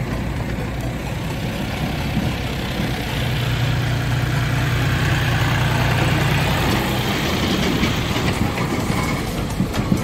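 John Deere 5105 tractor's three-cylinder diesel engine running as the tractor pulls past close by with its trailer, the engine note growing louder in the middle. A few sharp clatters come near the end.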